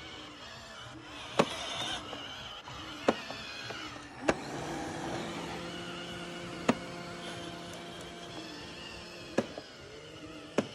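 Robot vacuum cleaner running with a steady motor hum, a pitched whine holding for a few seconds in the middle, and sharp knocks every one to three seconds.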